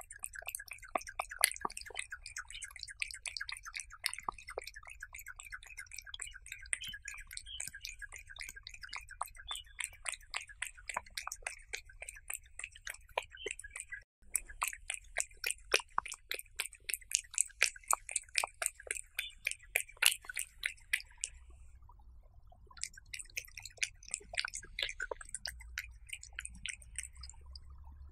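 Cat eating raw beef slices, close-miked: rapid wet chewing smacks, clicks and licks, with a short pause about three-quarters of the way in.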